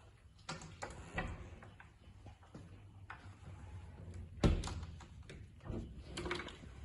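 Clicks and knocks of a tall integrated kitchen fridge's cabinet door being handled and pulled open, with one sharp thump about four and a half seconds in.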